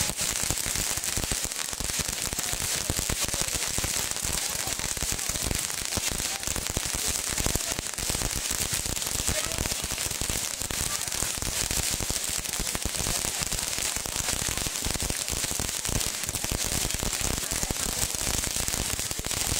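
Many fireworks held up on long poles going off together: a dense, continuous crackle of small pops over a steady hiss of sparks.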